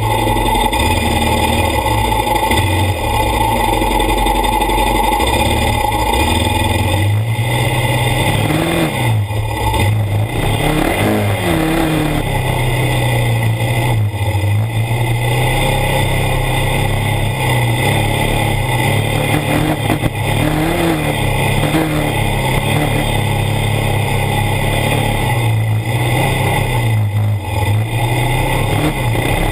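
ATV engine running as it rides across sand, its pitch rising and falling several times as the throttle opens and closes.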